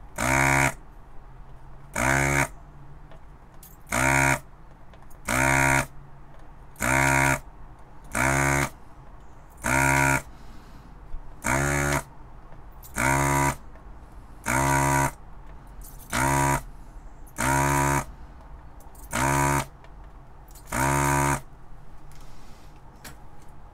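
Vacuum desoldering gun's pump buzzing in fourteen short, even bursts, about one every second and a half, as the trigger is pulled again and again to suck solder from the pins of a socket being removed.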